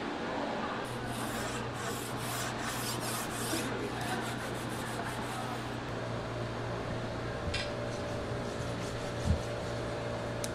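Rhythmic rasping, rubbing strokes, about three a second, that stop a little past the middle, over a steady low hum.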